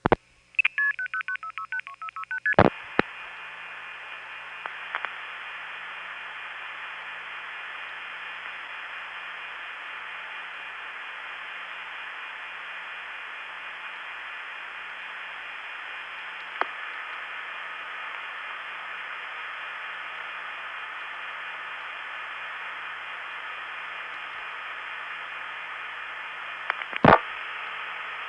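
A fast string of paired-tone multifrequency (MF) pulsing on a 1970s long-distance trunk, ending in a sharp click. Then a long stretch of steady line hiss with no ringing, and near the end two sharp clicks as the far end suddenly goes off hook.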